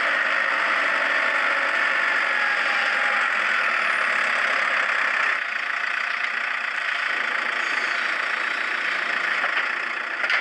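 A farm tractor's engine running steadily while its front loader carries a wrapped round bale. About five seconds in, the sound changes and drops slightly in level.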